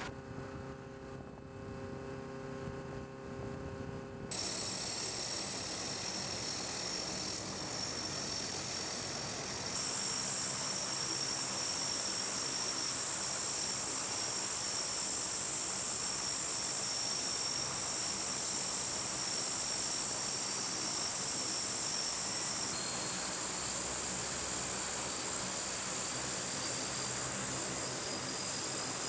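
Lockheed C-130H Hercules' Allison T56 turboprop engines running with propellers turning: a steady, even noise with a high turbine whine. The first four seconds hold a quieter steady hum, then the sound jumps abruptly louder.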